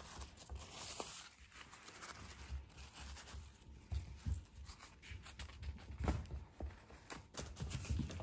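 Faint, irregular rustling and clicking of a crumpled paper ball as kittens bat it about a wooden floor, with soft thumps of paws landing.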